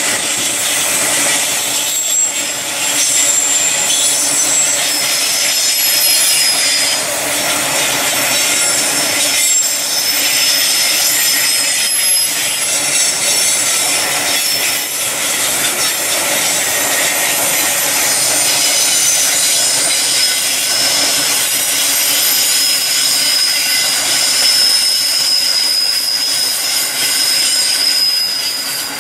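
Grain hopper wagons rolling past on the rails: a steady rush of wheels on track, with thin, high wheel squeals that come and go.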